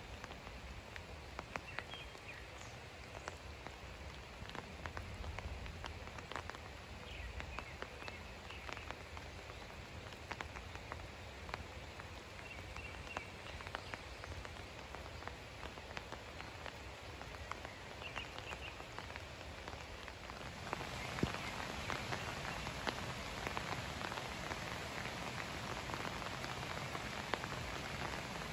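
Water pattering, an even wash of noise full of many small drop-like ticks, growing louder and brighter about twenty seconds in. A few faint, short, high chirps come through in the first twenty seconds.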